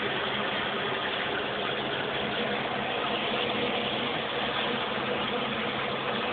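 Filter pump running steadily: a constant motor hum under an even hiss, with no change in pitch or level.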